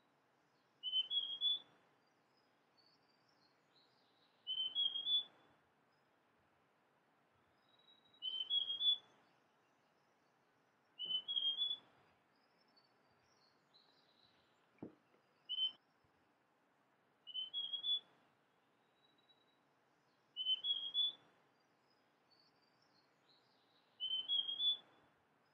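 Male large niltava singing: about eight short phrases of three or four rising whistled notes, each under a second long, repeated every three to four seconds. Faint higher chirps come between the phrases.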